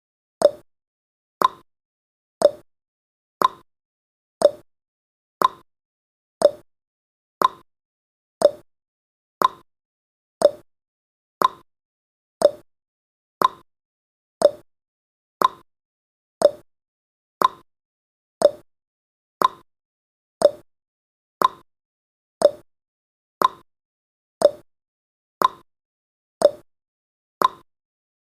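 Clock tick-tock sound effect of a countdown timer: one short sharp tick every second, alternating between a higher and a lower pitch.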